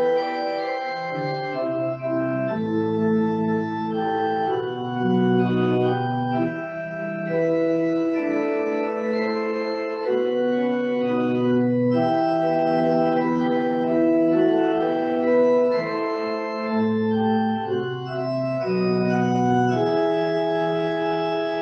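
Organ playing slow, sustained chords, the notes held without decay and changing every second or two.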